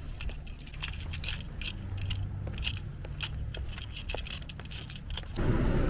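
Wind rumbling on the microphone, with scattered clicks and crackles from the handheld camera being handled. About five seconds in, it cuts abruptly to a louder, steady car-cabin rumble.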